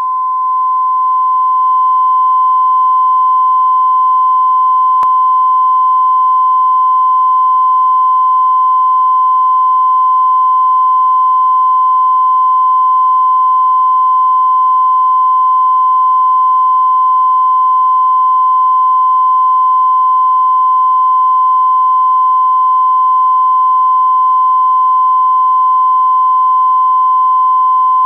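Broadcast line-up test tone that goes with colour bars: one steady, loud, high-pitched beep held at a single pitch, swelling up over the first couple of seconds and then holding constant.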